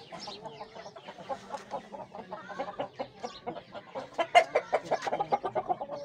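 Aseel chickens clucking: a rapid, irregular run of short calls that grows louder from about four seconds in.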